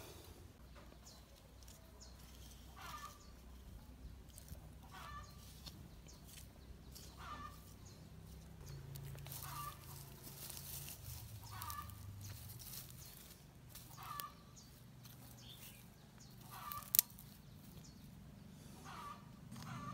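A bird, of the fowl kind, calling in short repeated calls about every two seconds, faint over a low steady hum, with one sharp click near the end.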